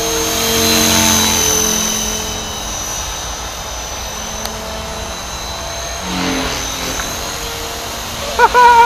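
Blade 450 3D electric RC helicopter in flight: a steady high whine from the motor and rotor, swelling about a second in and again around six seconds as it manoeuvres. A short, loud high-pitched cry cuts in near the end.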